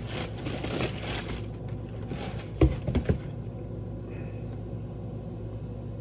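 Rustling of paper and a shoebox as a sneaker is handled, then a few dull thumps a little under three seconds in, over a steady low hum.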